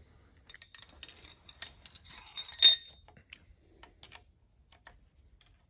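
Light metallic clicks and clinks as a 426 Hemi's crankshaft is turned over by hand to watch the lifters spin, tools and valvetrain parts tapping against each other. One sharp ringing clink about two and a half seconds in, then only a few faint ticks.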